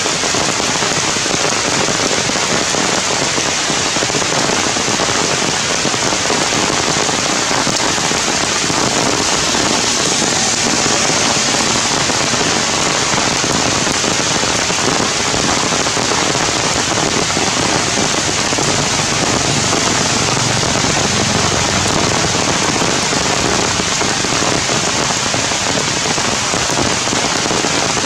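Heavy rain falling steadily on tree leaves, an even, unbroken hiss.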